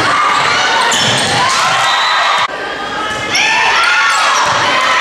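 Sounds of a volleyball rally on a hardwood gym floor: shoes squeaking, the ball being struck, and voices of players and spectators echoing in a large hall.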